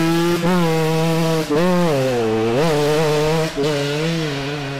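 Motorcycle engine revving, held at a steady buzz with a quick throttle blip about once a second, fading out near the end.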